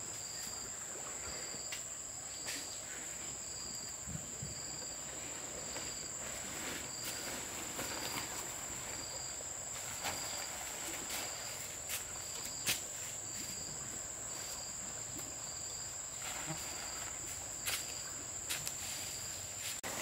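Insects calling: one holds a steady high-pitched drone, while another calls in short pulses about once a second. Scattered light clicks and knocks sound over them.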